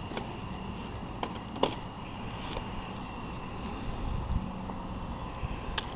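Small campfire of damp wood burning, with a few sharp crackles now and then over a steady hiss and low wind rumble.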